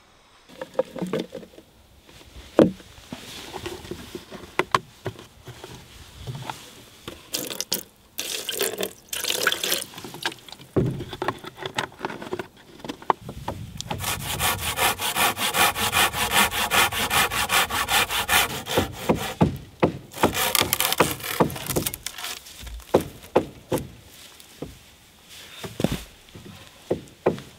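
Hand saw cutting through wood, a long stretch of steady sawing in the middle, with scattered knocks and scrapes of wood being handled before and after it.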